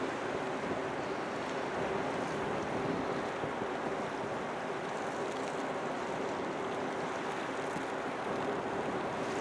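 Steady sound of sea water and wind on the deck of a ship at sea, with a faint even hum from the vessel's machinery underneath.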